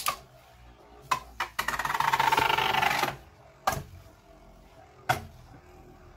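A Beyblade Burst top on an Assault Dash driver spinning in a plastic stadium. It gives a few sharp single knocks against the stadium and, from about a second and a half in, a rapid rattling buzz lasting about a second and a half as it skids along the plastic.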